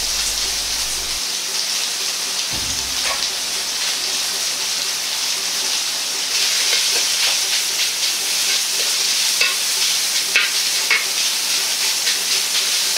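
Diced pork belly sizzling steadily in a hot wok, frying in its own rendered fat with no oil added, while a metal ladle stirs it.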